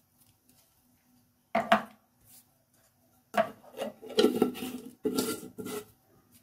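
Kitchen utensils and containers being handled on a counter: one sharp knock about a second and a half in, then a run of clattering knocks from about three seconds in.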